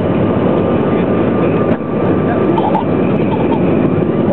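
Steady cabin noise inside a CRJ-700 regional jet in descent: the rush of airflow and the rear-mounted jet engines running, with a faint steady whine above it.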